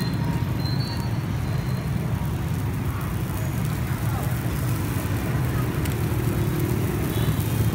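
Steady low rumble of street traffic, with no break or change.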